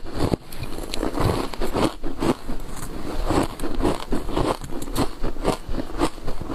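Ice coated in thick matcha powder being bitten and chewed close to the microphone: a continuous run of crisp crunches, two or three a second.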